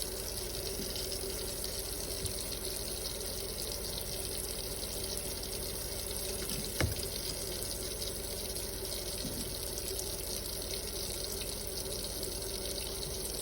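Kitchen tap running steadily, with one sharp knock about seven seconds in.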